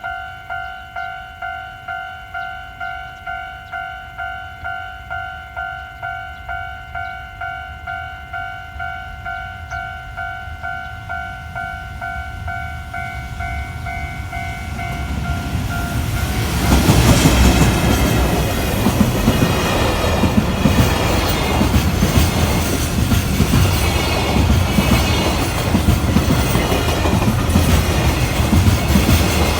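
Level-crossing warning bell ringing in an even electronic ding, about one and a half strikes a second. After about fifteen seconds the bell stops and a freight train hauled by an EF210 electric locomotive passes close by: a loud rumble with rapid clickety-clack of wheels over the rail joints.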